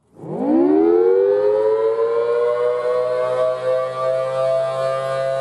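Outdoor warning siren winding up from a low pitch over the first second or so, then holding a steady tone. It is the civil defense siren that in Minnesota warns of severe weather, a funnel cloud or a tornado.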